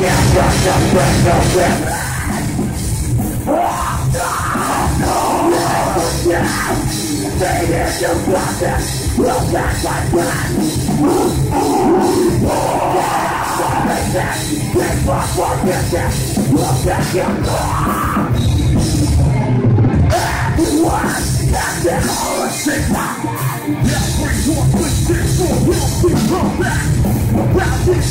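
Heavy metal band playing live: distorted electric guitars, bass and drums, with a vocalist shouting into the microphone.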